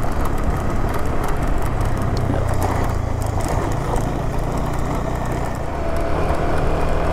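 Adventure motorcycle engine running at a steady road speed over a rough, potholed dirt track, with tyre and wind noise and scattered clicks and knocks from the rough surface. The engine note and loudness pick up a little about six seconds in.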